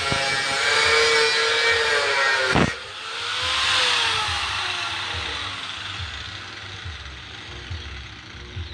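Angle grinder cutting through a steel rectangular tube, a loud grinding whine. About two and a half seconds in there is a sharp knock and the cut stops; the whine then falls steadily as the disc spins down and fades.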